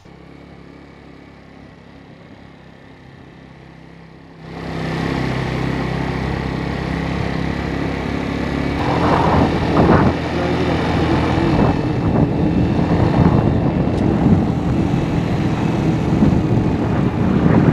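Suzuki GN125's single-cylinder four-stroke engine running as the motorcycle is ridden, with rushing wind noise. It is faint for the first few seconds, then much louder from about four and a half seconds in.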